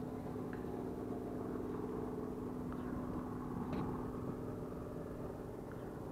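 Steady low mechanical drone of a distant helicopter, with a few faint ticks.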